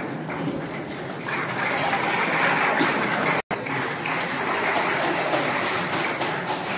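Audience applauding in a large hall, the clapping swelling about a second in and breaking off for an instant in the middle.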